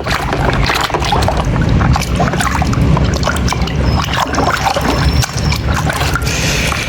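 Water sloshing and splashing in a bucket as a plastic toy truck is washed by hand, with frequent small knocks and clicks.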